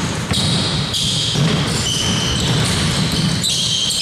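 Basketball game noise in an indoor arena: the ball bouncing on the court and players moving, with a steady din from the hall.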